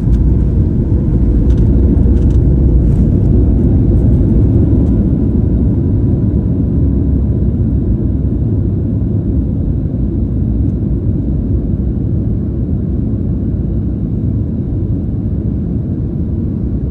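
Loud low rumble inside a Boeing 737 cabin as the jet rolls out on the runway after touchdown, with a few rattles in the first few seconds, slowly fading as the aircraft slows.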